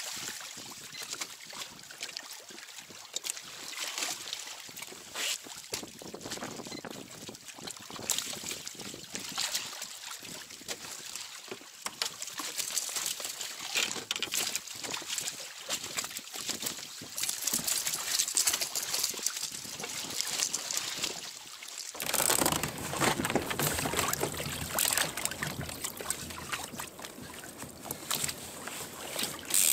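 Sea water sloshing and splashing against a sit-on-top sailing kayak's hull, with irregular sharp splashes from a hooked fish thrashing at the surface alongside. About two-thirds of the way through the sound changes abruptly to a louder, fuller rush of water and wind.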